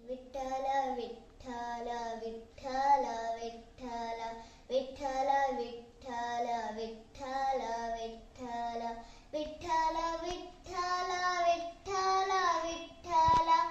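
A young girl singing a Marathi devotional bhajan solo, without accompaniment, in long melodic phrases with short breaths between them.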